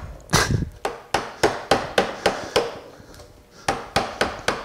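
A 3/4-inch flat bench chisel driven in quick, light strikes, paring a chamfer on a wooden spoon blank: about eight sharp taps, a short pause, then four more near the end.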